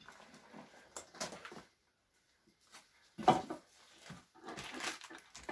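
Footsteps crunching and scraping over debris on a rubble-strewn floor, with a sharper knock a little over three seconds in and a burst of crunching near the end.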